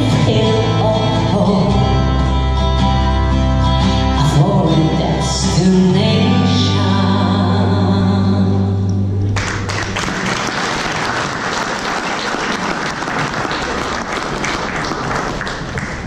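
A female singer sings into a microphone over a backing track with a bass line. The music stops suddenly about nine seconds in, and the audience applauds.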